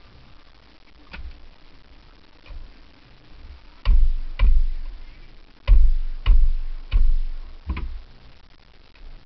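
A string of heavy, dull thumps and knocks on a small open boat, about eight irregular blows, each dying away quickly, the loudest bunched in the second half.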